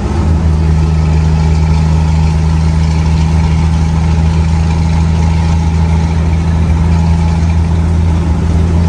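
Scania 124's inline-six diesel with a straight-through exhaust, heard from inside the cab, pulling at steady revs as the truck cruises down the road: a loud, even low drone that holds one pitch throughout.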